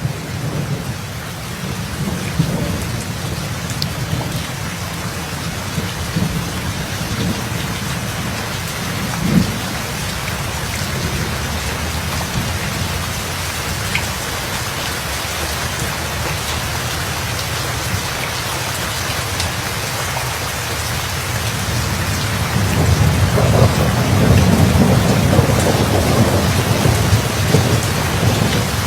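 Steady heavy rain with rolling thunder: a short low boom about nine seconds in, and a deep rumble of thunder that swells louder for the last six seconds or so.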